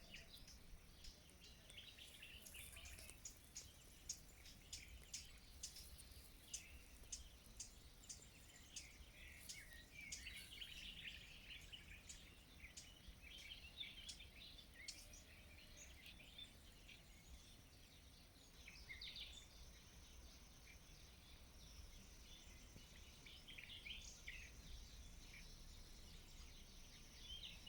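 Faint outdoor birdsong: several small birds chirping and calling, with a run of sharp repeated chips about two a second through the first half and a higher thin trill later on.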